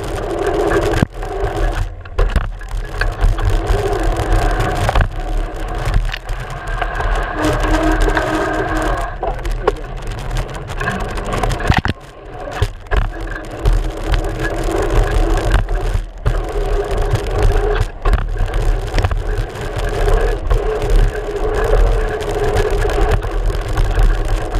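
Mountain bike rolling fast down a dirt trail, heard from a camera mounted on the front fork. There is a steady rumble of wind and tyre noise, with frequent knocks and rattles as the wheel hits bumps.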